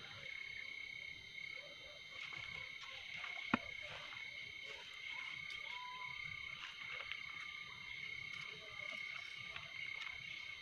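Night chorus of insects and frogs: a steady high-pitched insect trill, with short frog calls now and then. One sharp click about three and a half seconds in.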